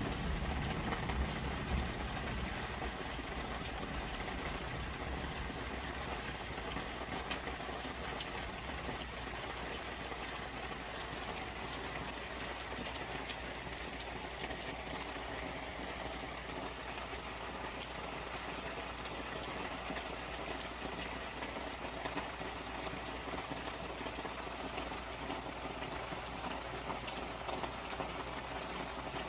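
Steady rain falling and pattering onto tarps just outside a window, heard from inside the room, with scattered faint drop ticks. A low rumble dies away in the first couple of seconds.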